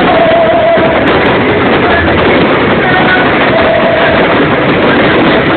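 Live concert music heard from the audience, loud and distorted: a singer's held notes come faintly through a dense, noisy wash of sound.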